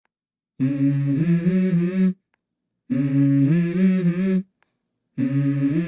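A voice humming the same short phrase three times, each a low held note stepping up to a higher one, with brief silences between: the opening of a song's vocal intro.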